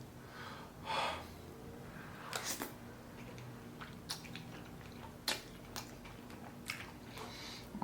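A person biting and chewing food close to the microphone, with a soft swell about a second in and scattered small wet clicks and smacks after it.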